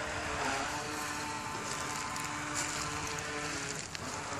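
Remote-control toy boat's motor running at speed on the water, a steady tone that dips briefly near the end.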